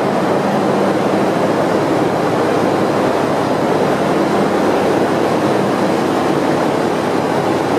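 Loud, steady machinery din of a container ship's engine room at work, beside the large two-stroke main diesel engine, with a low hum running under the noise.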